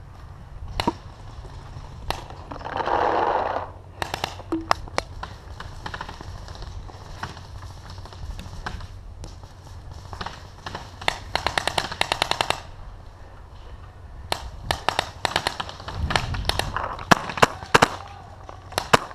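Paintball markers firing: a few single pops, then rapid strings of shots about halfway through and again near the end.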